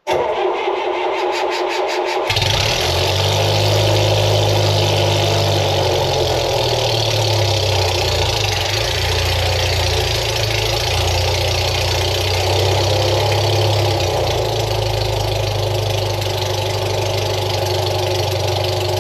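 The gasoline engine of a 1972 Allis Chalmers M65 road grader cranks on the starter for about two seconds, then catches and runs steadily. It is a cold start with the choke pulled fully shut, and it fires up readily now that a spring that held the choke slightly open has been removed.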